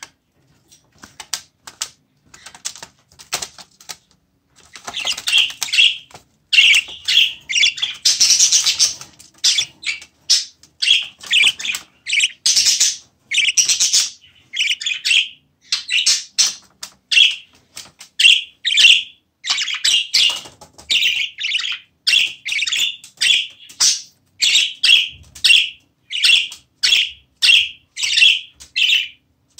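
Budgerigar giving loud, harsh, repeated calls, about one and a half a second, starting about five seconds in after a few faint clicks. The calls are agitated protest at the handling of the young birds.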